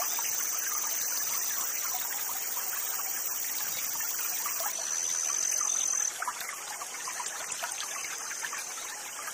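Small forest stream trickling and running steadily over its bed, with a thin high-pitched whine above it that comes and goes.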